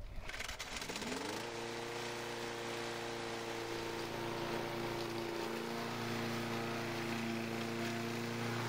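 Petrol walk-behind rotary lawn mower engine catching about a second in. Its pitch rises quickly, then it runs steadily at an even speed.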